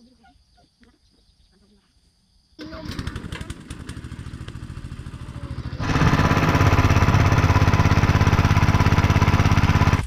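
Small single-cylinder petrol engine driving a water pump, running steadily while water gushes out of its outlet pipe. It comes in abruptly about two and a half seconds in and gets markedly louder from about six seconds in.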